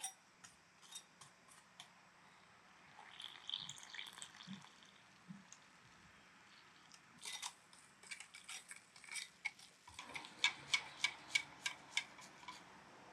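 Kitchen utensils clicking and tapping against a container while ingredients are prepared, ending in a run of quick, regular taps, about four a second, typical of stirring a batter.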